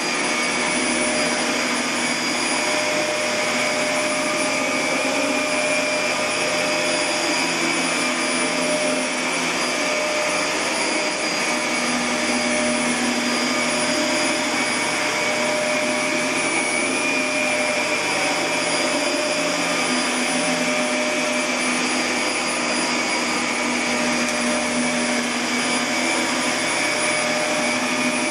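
A steady, continuous whir of a motor-driven machine, an even rushing noise with a few faint held tones, unchanging throughout.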